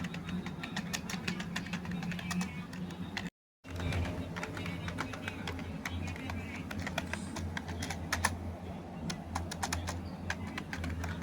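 Budget wired computer keyboard being typed on: a run of irregular, quick key clicks over a low steady hum, cutting out briefly about three seconds in.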